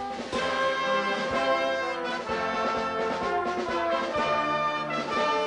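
Brass band music: held chords of trombones and trumpets, the chord changing every second or two.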